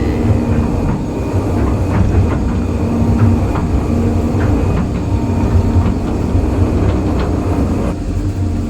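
Excavator's diesel engine running steadily, with scattered knocks and clanks over it.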